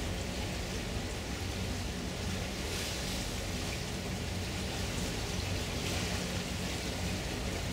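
Steady rushing hiss of water and wind aboard a river cruise ship under way, with a low, even hum from the ship underneath.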